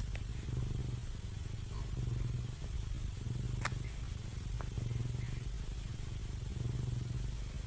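Domestic cat purring right at the microphone: a low steady rumble that swells and eases with each breath, with a few faint clicks.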